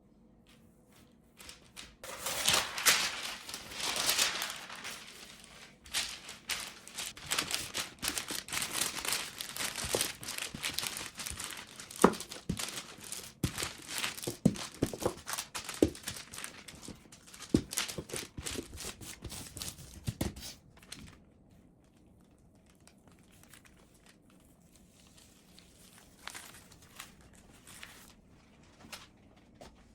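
Crinkling and tearing during kitchen food preparation, with many small sharp clicks and knocks mixed in, starting about two seconds in and stopping about twenty-one seconds in; after that only a few faint ticks.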